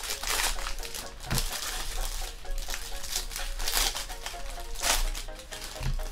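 Foil trading-card pack wrappers crinkling in a series of short crackles as they are torn open and handled by hand.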